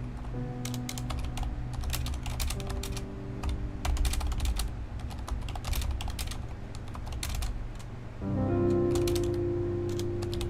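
Typing on a Corsair mechanical keyboard: irregular runs of sharp key clicks with short pauses between. Soft synth background music plays under it and swells about eight seconds in.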